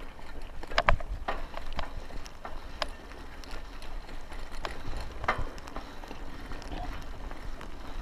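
Buffalo Charger bicycle rattling over a rough dirt track, with irregular clicks and knocks from the frame and handlebars over a low wind rumble on the chest-mounted microphone.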